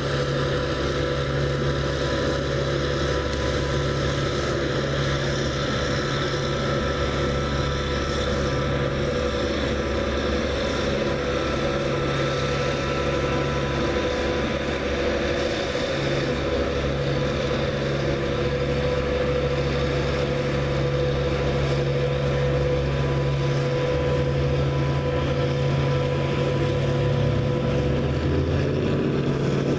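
A steady mechanical drone, like an engine running, with a constant low hum and higher whining tones; the low hum shifts in pitch a few times near the end.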